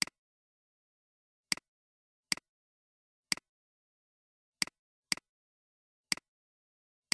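A computer mouse button clicking about seven times at uneven intervals, each click a quick tick of press and release, with silence in between.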